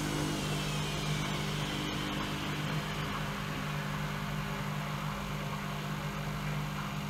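Bauknecht WAE8575 washing machine running, with a steady low hum and a high motor whine that falls in pitch over the first couple of seconds as the drum's speed drops.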